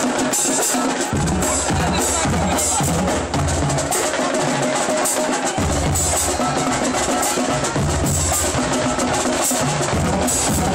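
Marching band in the bleachers playing a drum-heavy stand tune: bass drums and snares keep up sharp, steady hits under low brass notes, which drop out for a couple of seconds about a third of the way in.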